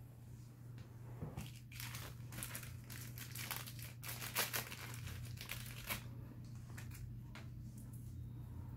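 Small clear plastic bag crinkling and crackling as hands work it, in a run of short crackles that is busiest from about a second and a half to six seconds in.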